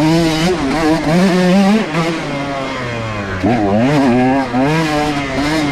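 125cc two-stroke dirt bike engine running hard, its pitch rising and falling constantly as the throttle is worked, with brief drops in revs about two seconds and three and a half seconds in before it climbs again.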